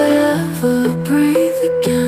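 Background music: an instrumental passage of held, changing notes.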